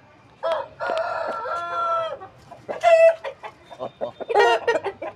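Aseel chickens: a rooster crows once, a long call of about a second and a half, followed by two short loud calls and scattered clucking.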